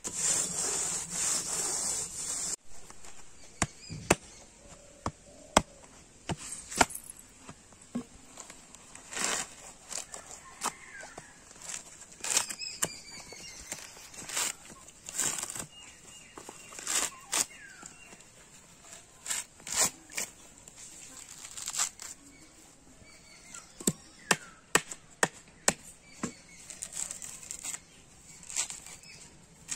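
A machete blade striking and prying into a coconut's husk, and the coarse fibrous husk being ripped and torn away by hand: irregular sharp knocks mixed with short rasping, tearing sounds.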